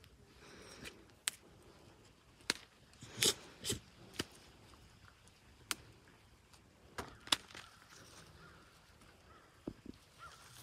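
Handling and movement noise: scattered sharp clicks and taps at irregular intervals over a faint, quiet background, the loudest a little over three seconds in and about seven seconds in.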